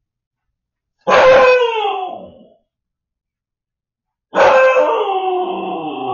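Husky puppy howling twice: a short cry falling in pitch about a second in, then a longer, wavering howl starting about four seconds in. These are the distress cries of a puppy left home alone.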